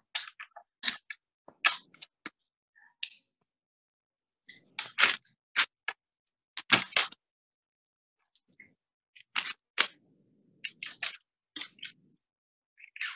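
Small pieces of cut stained glass clicking and tapping against a sheet of glass as they are set down and shifted into place. The clicks come in three short clusters with silent gaps between them.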